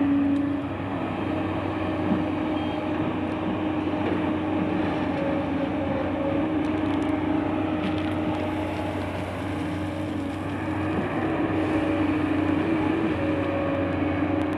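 Heavy diesel engine of an excavator running steadily, with a constant hum and a few faint clanks.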